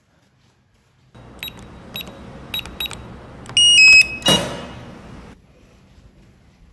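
Electronic door keypad: four short key-press beeps, then a louder run of beep tones, then a sharp clack as the lock releases, over a faint hiss.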